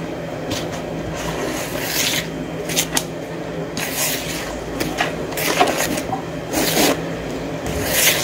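Thick muffin batter being stirred by hand in a plastic mixing bowl: irregular scraping and rubbing strokes of the utensil against the bowl, as the dry ingredients are worked into the wet mixture.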